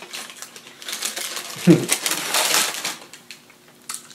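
Paper fast-food bag crinkling and rustling as it is handled with fried onion rings inside, then a crisp crunch near the end as an onion ring is bitten.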